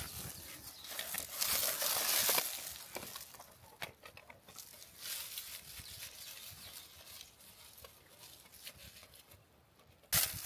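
Dry leaf litter and low plants rustling under hands as an aluminium Sherman live trap is set on the ground, with a few light clicks and taps; the rustling is loudest about two seconds in, and a sudden louder noise comes just before the end.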